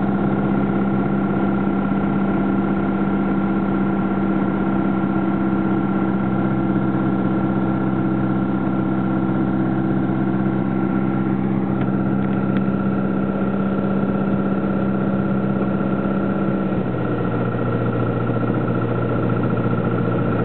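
Single-engine light aircraft's engine and propeller droning steadily, heard from inside the cockpit on approach to land. About 17 seconds in, the note steps down to a lower pitch as power comes back.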